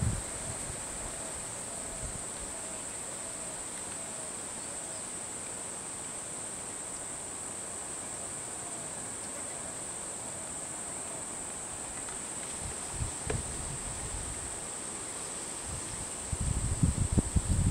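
Steady high-pitched drone of insects, with faint short chirps repeating in the first few seconds. Bursts of low rumbling noise come in near the end.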